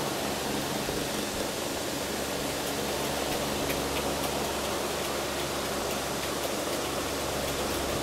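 Electric desk fan running: a steady whoosh of moving air with a low motor hum underneath.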